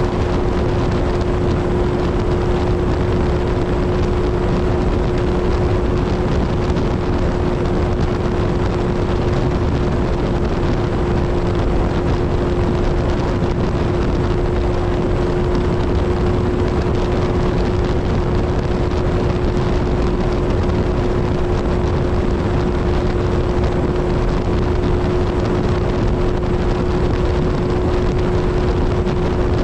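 Kawasaki Z1000 inline-four motorcycle engine cruising at a steady highway speed: a constant exhaust drone at one unchanging pitch, over heavy rushing noise.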